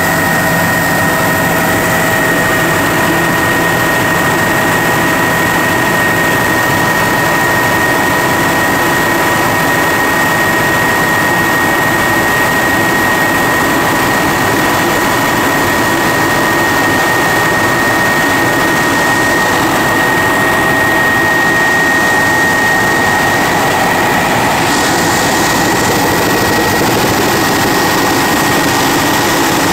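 Turbine helicopter in flight heard from inside the cabin: a loud, steady engine and rotor drone with a constant high whine.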